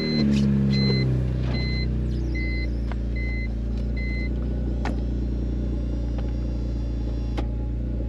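BMW E46 convertible's power soft top running closed, its motor giving a steady low hum that swells at the start and then settles. Over the hum, a two-tone warning chime repeats about every two-thirds of a second for the first four seconds, and the top mechanism clicks a few times.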